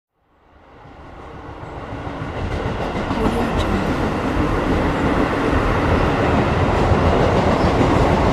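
Train running on rails, fading in from silence over the first few seconds as it approaches, then holding loud and steady as it passes close by.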